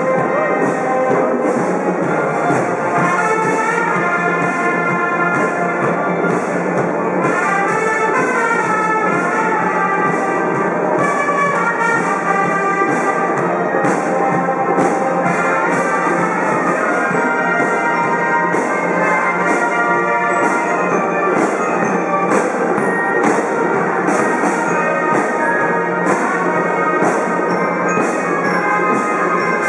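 Cadet marching band playing: brass (trumpets, sousaphones) carrying a melody over a steady drumbeat.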